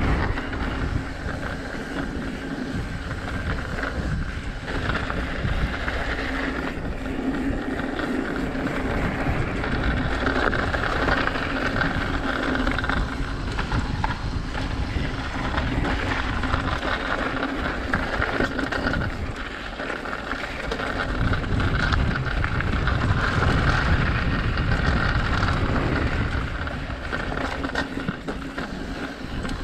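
Mountain bike riding down a dirt trail, heard from a GoPro on the rider: wind buffeting the microphone over the steady running noise of the bike and tyres.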